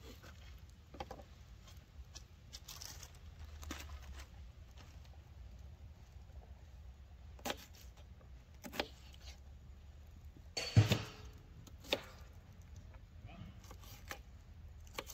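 Food being prepared by hand: scattered clicks and knocks of utensils and containers being handled, with one louder knock about eleven seconds in, over a low steady rumble.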